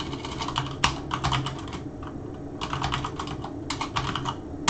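Typing on a computer keyboard: two quick runs of keystrokes with a short pause between them, ending in one sharper, louder click.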